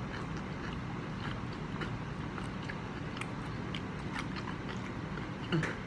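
Chewing crispy fried chicken close to the microphone, with scattered small crunches and mouth clicks over a steady low background noise.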